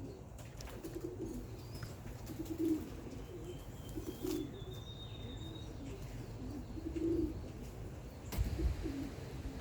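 Young homing pigeons cooing softly, a low coo every second or two, with wind rumbling on the microphone.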